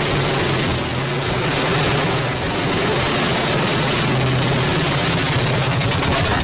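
A large engine running steadily, without revving.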